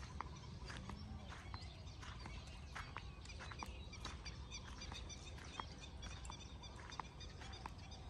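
Outdoor ambience: a steady low rumble with scattered, irregular short clicks and taps and faint high chirps.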